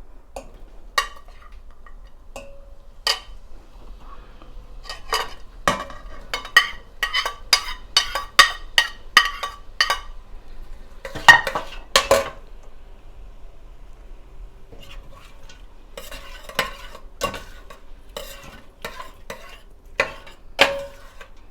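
A cooking utensil stirring onions frying in oil in a pot, clinking and scraping against the pot with a ringing tone. It comes in quick runs of strikes, with two louder knocks about halfway and another run near the end.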